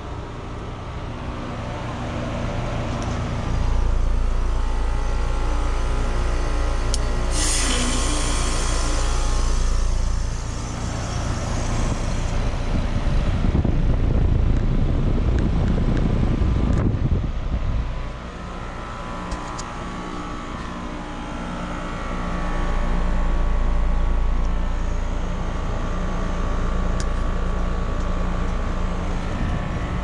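American Standard Silver Series heat pump outdoor units running in their defrost cycle with a steady hum. About seven seconds in, a sudden rush of hissing starts and lasts about five seconds. A low rumble follows in the middle.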